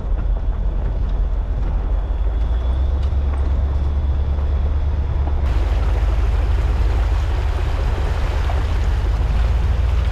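Off-road vehicle driving slowly on a dirt trail: a steady low rumble of engine and tyres with wind on the microphone. About halfway through the sound switches abruptly to a brighter hiss and splashing of a Jeep's tyres churning through wet mud and water, over the same low rumble.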